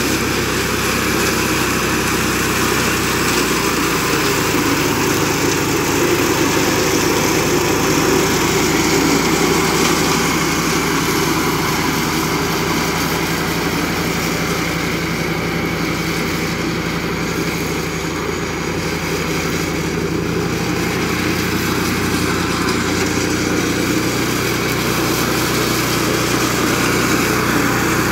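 Flail mower running steadily, its engine droning under the rushing noise of the chopping shaft as it cuts and shreds grass.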